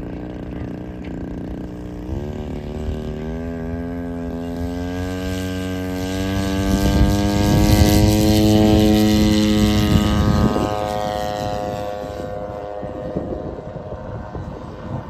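Radio-control scale Hellcat model airplane's propeller drive throttling up for takeoff. It steps up in pitch about two seconds in and climbs steadily, is loudest as the plane passes close, then drops in pitch and fades as it flies away.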